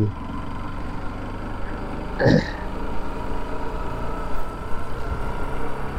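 Bajaj Pulsar RS200's single-cylinder engine running steadily while riding, under a steady rush of noise. A short sharp sound stands out about two seconds in.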